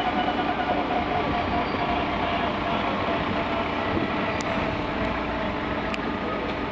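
Steady turbine whine and rumble from a parked AS532 Cougar helicopter whose rotor is not turning.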